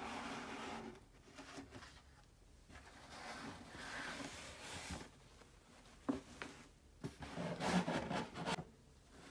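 A cardboard box sliding out of its sleeve, scraping until about a second in, then fabric and tissue paper rustling and crinkling as a dust bag is handled and lifted from the box, with a sharp click around six seconds in and the loudest crinkling near the end.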